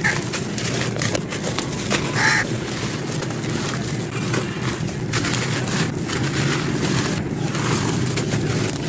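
Dry sand-cement chunks being crumbled and crushed, a continuous gritty crunching and crackling. A short tone sounds about two seconds in.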